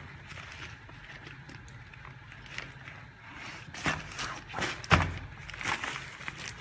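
Unboxing handling noise: a nylon drawstring bag and cardboard carton being handled, with light rustling and two knocks about four and five seconds in, the second the louder.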